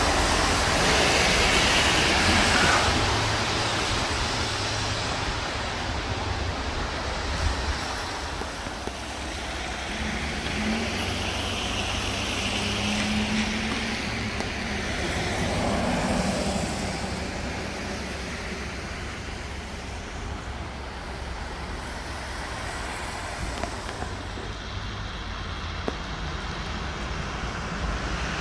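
Street traffic: cars driving past one after another, with a steady low engine rumble underneath; the loudest pass is in the first few seconds.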